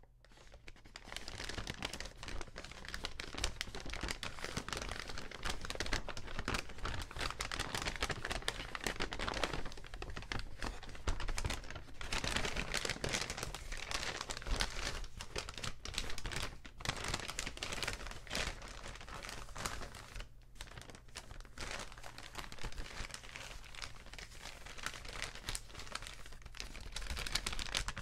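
Paper bags being crinkled and crumpled in a dense, continuous crackle. The crackle builds up in the first second or two and has brief lulls about ten, seventeen and twenty seconds in.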